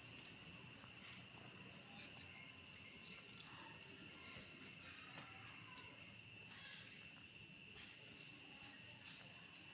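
A cricket chirping in a steady high-pitched trill of evenly spaced pulses, about six a second, that pauses for about two seconds midway.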